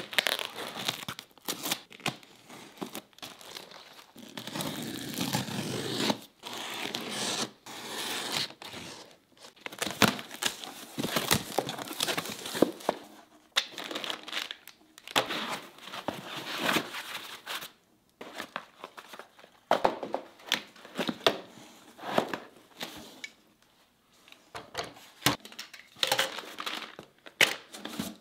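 Plastic stretch wrap and packaging being pulled, torn and crinkled by hand, in irregular rustles, with short sharp clicks and knocks as packed parts are handled.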